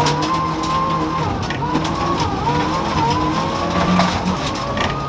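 Rally-tuned Mitsubishi Lancer Evolution X's turbocharged four-cylinder engine, heard from inside the cabin, pulling hard at high revs. Its pitch drops with a gear change about two seconds in and then climbs steadily again, over tyre and gravel noise with loose stones ticking against the car.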